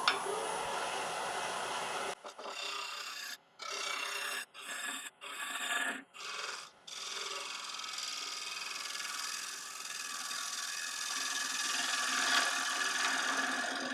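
A bottom-feeder gouge cutting the inside bottom of a dry Irish yew bowl spinning on the lathe: a steady shaving hiss of tool on wood. In the first half the cut breaks off about six times in quick succession as the tool lifts away, then runs on as one continuous cut.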